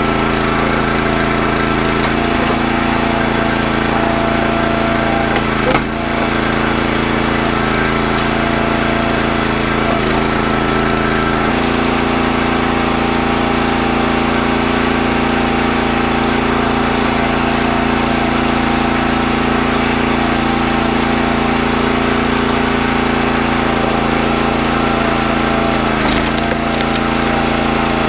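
Kohler Command Pro 14 HP single-cylinder engine on a hydraulic log splitter running steadily, its pitch shifting a little about eleven seconds in. There is a single knock about six seconds in and a few light clicks near the end.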